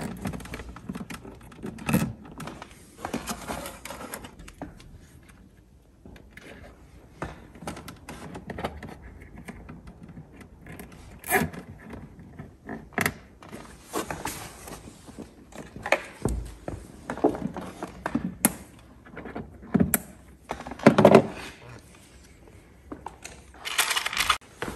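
Irregular clicks, knocks and rustling of hands working a cable and plastic clips inside a motorhome's toilet-cassette compartment, with a few louder knocks on the plastic.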